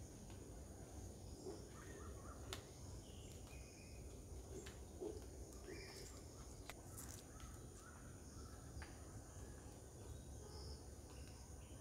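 Faint garden ambience: scattered distant bird calls and chirps over a steady low rumble, with a few sharp clicks.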